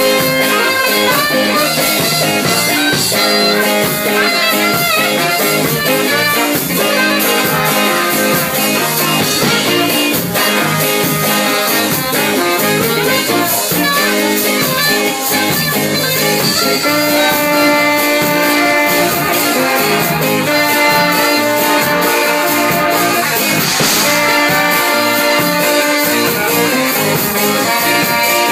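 Live band playing a song with a horn section over drums and guitar; the horns hold long notes in the second half.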